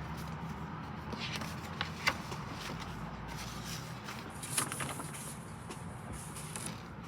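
Packaging being handled during an unboxing: light rustles and a few sharp clicks over a steady low hum, with a brief high hiss about four seconds in.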